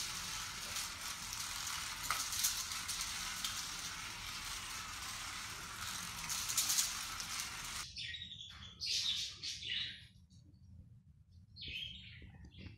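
A steady hiss with a few faint clicks cuts off suddenly about eight seconds in. A lorikeet then gives short, high chirps in two bouts, the second near the end.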